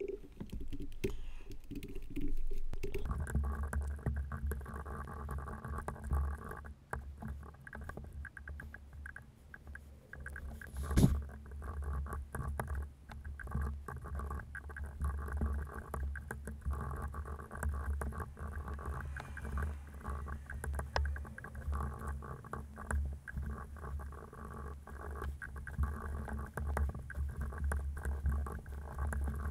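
Computer keyboard typing, a dense run of fast key clicks over a steady low rumble that sets in about three seconds in, with one sharper, louder click a little past the middle.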